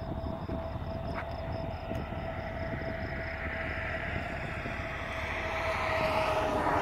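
Vehicle noise that grows louder toward the end and peaks there, over a steady mid-pitched hum.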